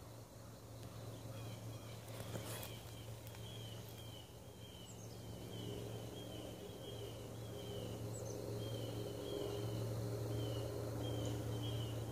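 Outdoor woodland-edge ambience: a short, high, falling chirp repeated about twice a second, over a low steady hum, with one brief rustle or knock about two and a half seconds in.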